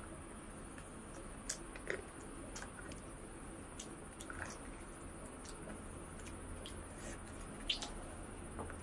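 Close-miked eating sounds: a person chewing a mouthful of mutton liver curry and rice, with small wet mouth clicks and lip smacks. There are a few sharper clicks about a second and a half in, at two seconds, and near the end.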